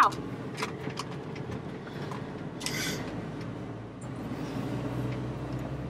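Motorhome driving, its steady engine and road hum heard inside the cab, with a few light clicks and a short hiss about three seconds in.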